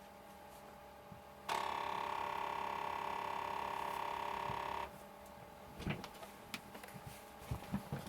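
Commodore CBM 8050 floppy disk drive formatting a disk: a steady pitched mechanical hum starts abruptly about a second and a half in, holds for about three seconds and cuts off, then a run of irregular small clicks and ticks follows.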